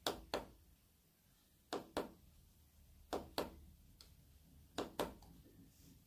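Push button on a rechargeable automatic aroma diffuser being pressed four times, each press a sharp double click (press and release), about every second and a half. It is stepping through the unit's settings.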